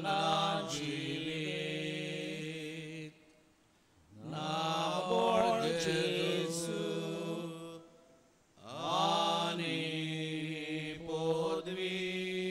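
A voice singing a slow devotional chant in Konkani, in long held notes: three drawn-out phrases, each sliding up into its first note, with short breaks between them.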